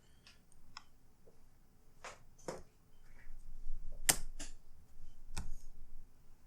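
A series of sharp clicks and taps from plastic laptop parts being handled and pressed together during reassembly, the loudest about four seconds in.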